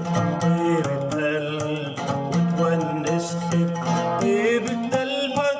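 Instrumental ending of an Arabic song: plucked string melody over percussion strokes, cutting off near the end and dying away.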